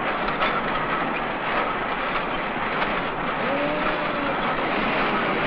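Steady din of machinery on a car assembly line, a dense even noise with a few faint clanks.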